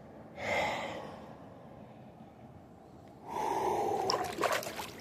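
A man breathing hard and out of breath: a short exhale about half a second in, then a longer, louder gust of breath from about three seconds in.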